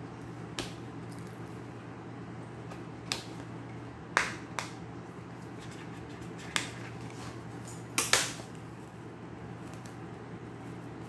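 Hands picking and prying at a tightly sealed package to get it open: scattered sharp clicks and scrapes, the loudest about four and eight seconds in, over a steady low hum.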